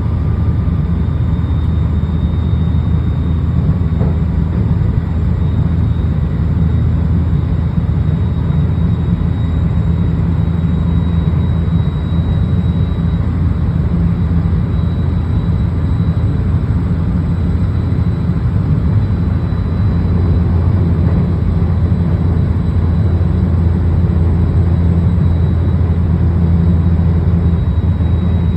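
JR West 223 series electric train running at speed, heard from inside the car: a steady rumble of wheels and traction motors with a faint high whine that slowly rises in pitch. A slightly off-key tone is mixed into the motor sound, which the uploader questions as possibly an abnormal noise from the motor.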